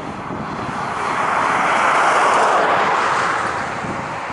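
Airbus A319 airliner on final approach, gear down: a steady jet-engine roar that swells to its loudest about two seconds in, then eases off.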